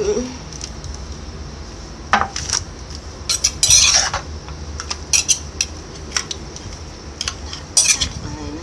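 A utensil clinking and scraping against a clay mortar as green papaya salad with fresh shrimp is tossed and mixed in it: irregular clinks and short scrapes, with a dense run of them about three and a half to four seconds in.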